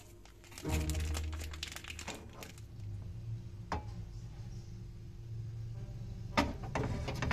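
Margarine melting and sizzling faintly in a nonstick frying pan over a gas burner, with scattered crackles and one sharper click near the end, over a low steady hum.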